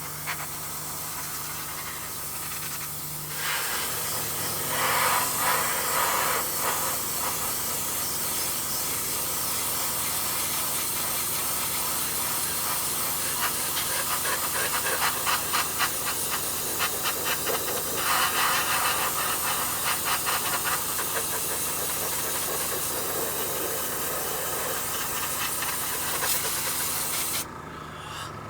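Airbrush spraying paint: a steady hiss of air that swells and flutters in strength, then cuts off suddenly near the end.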